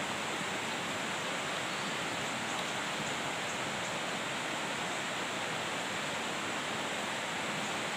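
Steady rush of river water flowing over rocks, an even hiss that does not change.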